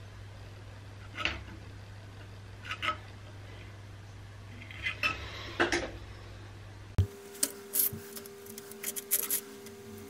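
Light metal clinks and scrapes of small steel parts being handled and fitted on a bench vise. There are four short scrapes over a steady low hum, then the hum stops about seven seconds in and a handful of sharper clicks follow.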